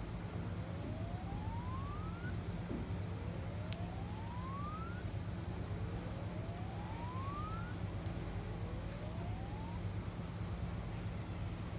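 Steady low hum with four faint rising whoops, each gliding upward for about two seconds and repeating roughly every three seconds, and a single sharp click a little before the second whoop ends.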